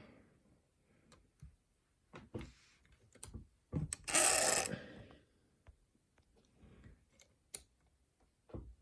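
Scattered light metallic clicks and taps as a padlock and lock-picking tools are handled. A louder scraping rustle lasts about a second, around four seconds in.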